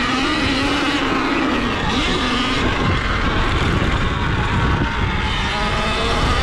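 Surron Ultra Bee electric dirt bike riding over a dirt track: a motor whine that rises and falls in pitch with the throttle, under a steady rush of wind and road noise.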